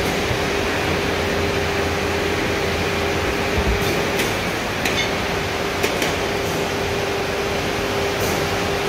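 Steady dye-house machinery drone with a constant hum. A few light clicks and knocks come around the middle as yarn cones are handled on a package dyeing machine's carrier.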